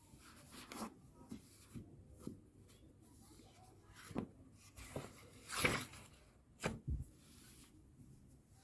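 Scattered light knocks and handling noises from objects being moved about, the loudest a longer scraping sound a little past halfway and two sharp knocks about a second later.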